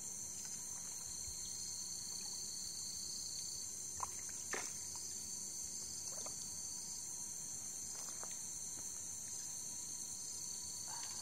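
Night insects trilling: a steady high-pitched chorus, with a lower trill that comes and goes about once a second. Two faint sharp clicks sound about four seconds in.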